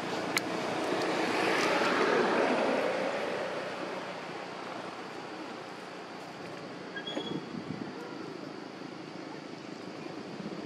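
Rushing noise of a passing motor vehicle, swelling to a peak about two seconds in and then fading to a steady outdoor background.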